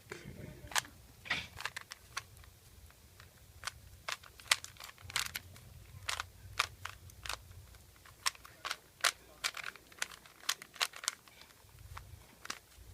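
Rubik's cube layers being turned by hand: a run of sharp plastic clicks and clacks at an uneven pace, a few a second.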